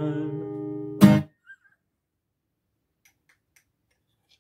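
Acoustic guitar's last chord ringing and fading, then one final strum about a second in, the loudest moment, cut off short. After it, near silence with a few faint clicks.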